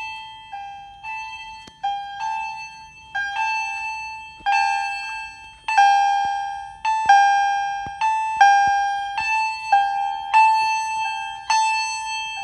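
Fire alarm chime strobes, including a Honeywell-branded Wheelock chime strobe with its pitch adjusted, sounding in alarm. Each strike is a bell-like electronic tone that rings out and fades, at two pitches, and the strikes fall unevenly out of step with one another. The chimes grow louder about halfway through.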